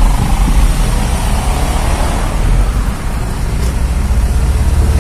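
Inside the cabin of an automatic (AMT) car on the move: a steady low rumble of engine and road noise.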